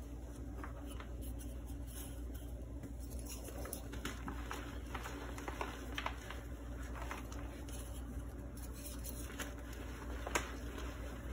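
Hands scooping, squeezing and crumbling soft powdered purple gym chalk, giving soft crunching with scattered small crackles and one sharper snap near the end. A steady low hum runs underneath.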